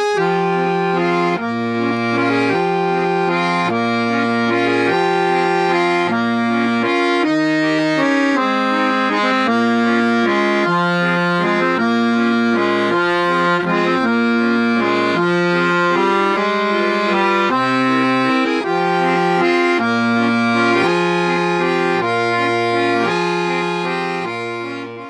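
Accordion music: a lively tune over a bass that alternates between two low notes about once a second, fading out near the end.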